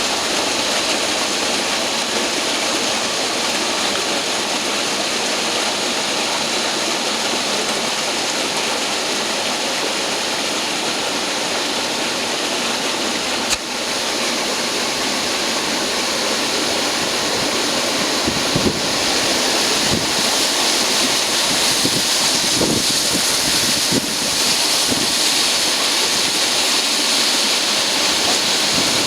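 Duct-cleaning vacuum unit running with a steady, loud rushing noise. A sharp click sounds about halfway through, a short knock a few seconds later, and after it the rush is a little louder and brighter.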